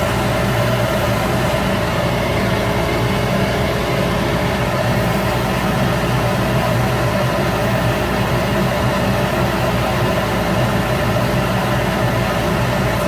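Shop Fox W1836 midi wood lathe running steadily, its motor giving an even hum with several steady tones and no change in speed.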